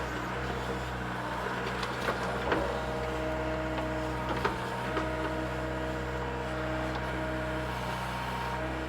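Mini excavator's diesel engine running steadily under hydraulic load, with a whine, while working tree stumps and roots; a few light knocks in the first half.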